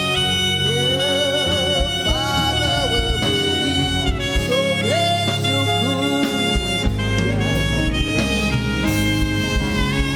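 Worship music: long held keyboard chords over a bass line, with a wavering melody line above them, the chords changing every couple of seconds.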